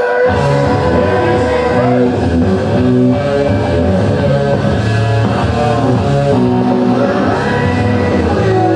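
Rock music with guitar, a wrestler's entrance theme.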